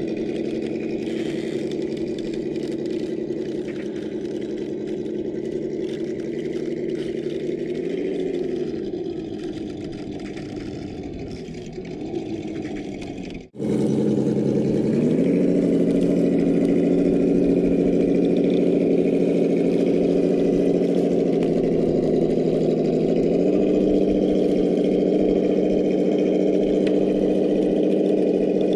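Traxxas TRX-4 Defender RC rock crawler running, with a steady engine-like drone that dips and rises in pitch with the throttle. It breaks off suddenly about halfway through and comes back louder.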